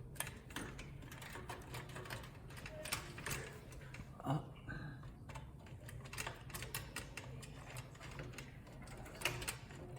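Power supply cables being handled and routed through a PC case: scattered light clicks and taps of cable connectors and plastic, with a louder knock about four seconds in and another near the end.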